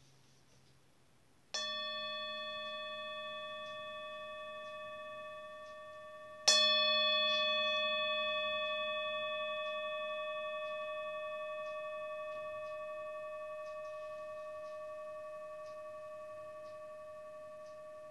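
Metal singing bowl struck twice with a wooden mallet, about a second and a half in and again some five seconds later, the second strike louder. Each strike rings out in several clear tones at once that fade slowly over more than ten seconds.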